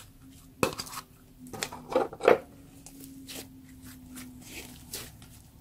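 Pink slime being stretched and kneaded by hand into a crumbly black mixture, giving sticky clicks and pops. The loudest come as a quick cluster about two seconds in, then smaller ticks follow.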